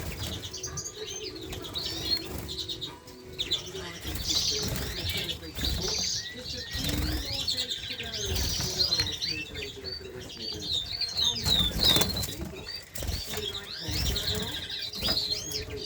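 Small caged finches and canaries fluttering their wings in the cages, with many short, high, quick chirps and tweets going on throughout.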